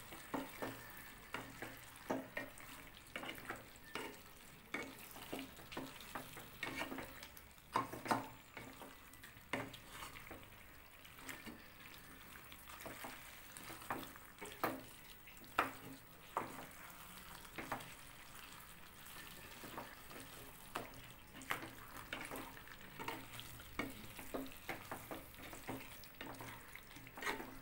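Wooden spatula stirring and mashing cooked tapioca and chicken in a non-stick pan, irregular scrapes and taps against the pan, over faint sizzling.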